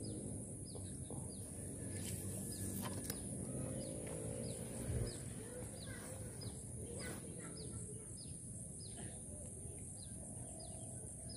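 A bird repeating short, high, falling chirps every half second to a second, over a steady high-pitched hiss and faint low rumble of outdoor ambience.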